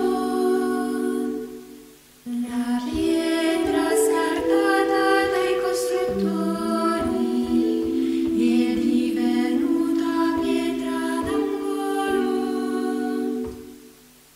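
Slow unaccompanied choral singing, several voices holding long notes together in separate parts. A phrase fades out near the start, and a new one begins about two seconds in and fades again near the end.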